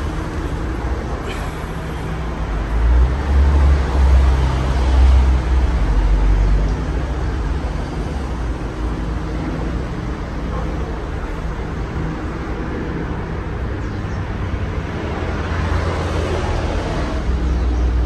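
Casablanca Four Seasons III ceiling fan running, with a steady rush of air and a low, uneven rumble from its draft buffeting the microphone, heaviest a few seconds in.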